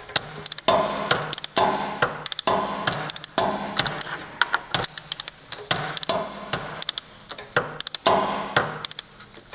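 Torque wrench ratchet clicking in short bursts about once a second as the governor retaining nut on the camshaft of a Massey Ferguson Z134/Z145 engine is tightened stroke by stroke toward 35 lb-ft.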